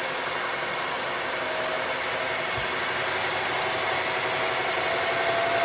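BMW 750Li's N63 twin-turbo V8 idling steadily just after being started, on its first run after a valve stem seal repair for oil burning. A faint steady whine comes in about a second and a half in.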